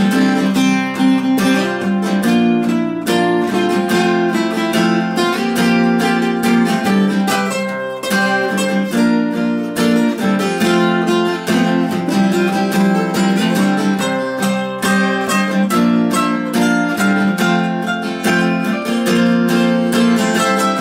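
Acoustic string music playing an instrumental break: strummed acoustic guitar with picked notes over it, and no singing.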